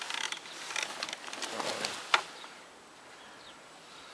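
Rustling and sharp clicks as a landing net holding a chub is handled on dry bankside grass, with one louder click about two seconds in. After that it turns quiet, with a few faint bird chirps.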